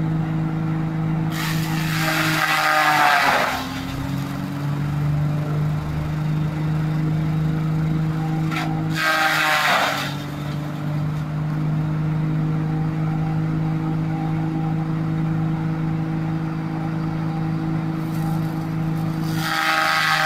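Tractor-driven coconut frond shredder running steadily with the tractor's engine, three times biting into a frond with a loud grinding crunch and a falling whine as the rotor slows under the load, then picking up speed again.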